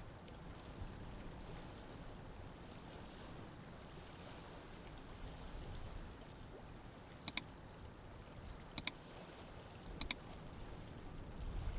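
Lake water lapping gently, a soft steady wash. Past the middle come three short, sharp double chirps, roughly a second and a half apart, much louder than the water.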